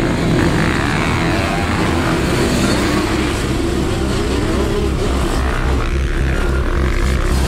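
A pack of motocross dirt bikes and a quad racing together, many engines revving at once, their pitches rising and falling over each other.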